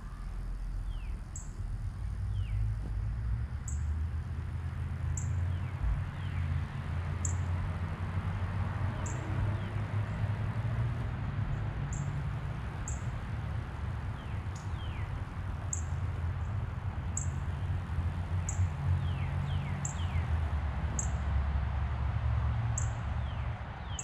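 A hummingbird's wings hum low and fluctuating as it hovers and feeds close by. Faint descending bird chirps and short high ticks repeat roughly once a second behind it.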